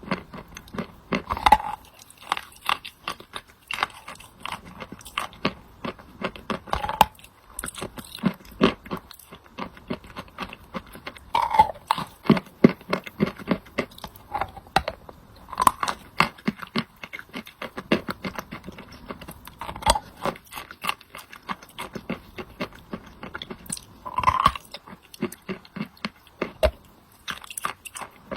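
Wet chalk with clay paste being bitten and chewed close to the microphone: a dense run of small crunches and crackles, with a louder bite every four or five seconds.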